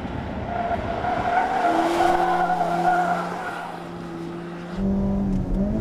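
Suzuki Liana's four-cylinder petrol engine running hard on the wet test track, with tyres squealing through a corner. About five seconds in, the engine note turns louder and fuller, heard from inside the cabin, and its pitch rises as it revs up.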